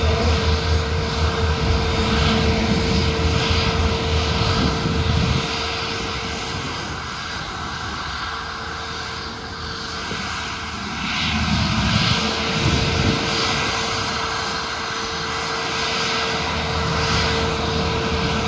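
Airliner engines running, with a steady whine over a deep rumble. The rumble eases about five seconds in and builds again about twelve seconds in.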